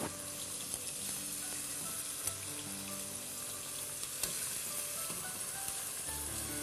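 Chunks of raw meat searing as they are laid into hot ghee in a pot: a steady sizzle, with a couple of sharp clicks.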